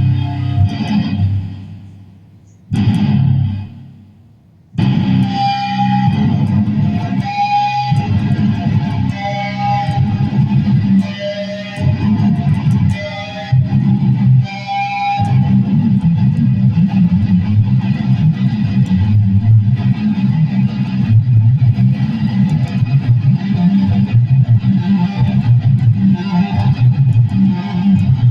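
Electric guitar played through effects: a chord rings and fades, a brief stab, then high single notes over low chords, giving way about halfway through to steady, dense low strumming.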